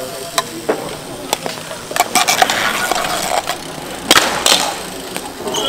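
Hardcourt bike polo play on asphalt: sharp clacks of mallets hitting the ball and the court, with a louder cluster of hits about four seconds in, over a steady rolling noise of bicycles.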